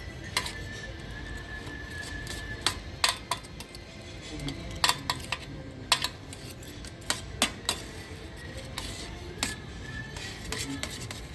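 Cutlery clinking against a plate in irregular sharp clicks, over background music.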